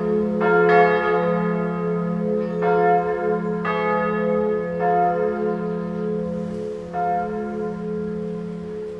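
Full peal of three swinging church bells: two 1979 Perner bells in f¹ and a♭¹ with a small b² bell above them, a minor-third motif with a cymbal bell. Overlapping strikes come every second or two over a steady low hum, fading slightly toward the end.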